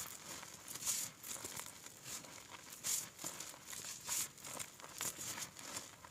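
Hands squeezing and pressing into a heap of crumbled gym chalk powder, crushing it with soft crunches at an uneven pace, about one every half second.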